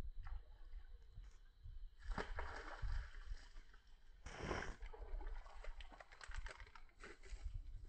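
A hooked snakehead splashing and thrashing as it is hauled through shallow, weedy water. There are two louder splashes, about two seconds in and just past halfway, with smaller rustles and splashes between them.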